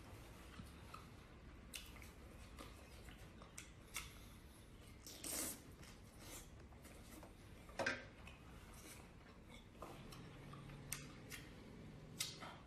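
Close-up mouth sounds of someone eating skewered prawns in sauce: quiet wet chewing and biting, with scattered clicks and a few louder smacks about five, eight and twelve seconds in.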